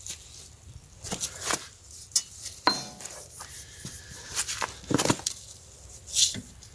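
Irregular metal clinks and knocks from hydraulic cylinder parts and tools being handled, about ten strikes, a few ringing briefly.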